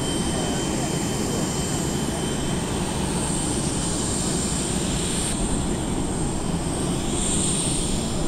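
Steady jet aircraft engine noise: a continuous rumble with a high whine that swells and fades.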